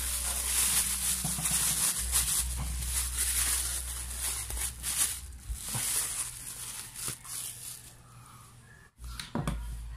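Thin plastic shopping bag crinkling and rustling as it is handled and unwrapped, dying down about seven seconds in.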